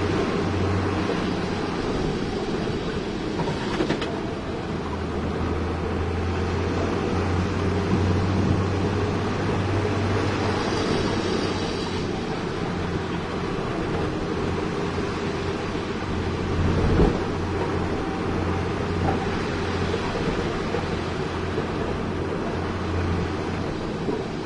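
Heavy diesel engine running steadily with a low rumble, and a single thud about two-thirds of the way through.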